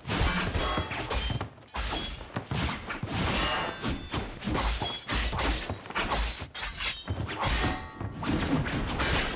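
Film sword-fight sound effects: swords clashing in a rapid run of metallic clangs with a ringing after them, mixed with heavier thuds, over a music score.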